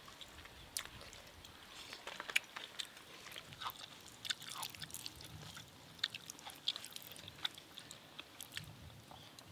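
Faint eating sounds: scattered small clicks and smacks of chewing, and of fingers working rice and fish curry on a banana leaf.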